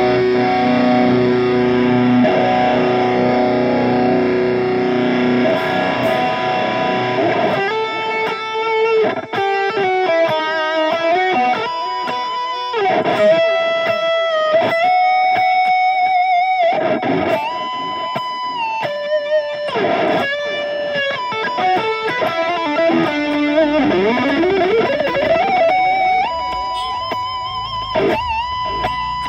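Electric guitar played through a NUX MG-300 modeling processor on its JP Lead preset, with a chorus block at 100% mix (depth and rate at zero) for a wide stereo sound. A held chord rings for several seconds, then a lead line of single notes follows, with bends and vibrato, ending on a long held note with vibrato.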